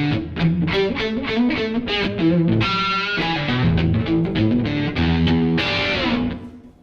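Stratocaster electric guitar playing a blues passage of single notes and chords through a Surprise Sound Lab Flex15 single-ended amp into a 2x12 cabinet, on the boosted channel with the boost maxed, giving a light overdrive. The mid selector is one click above the middle, for a little more mids. A last strummed chord rings and dies away near the end.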